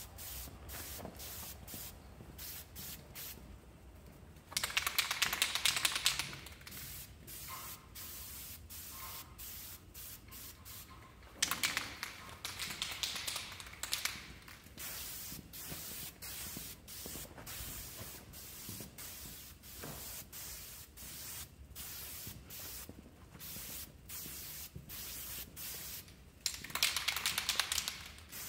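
Aerosol spray paint can hissing as it is sprayed, in three longer, louder bursts with softer hissing and quick clicks in between.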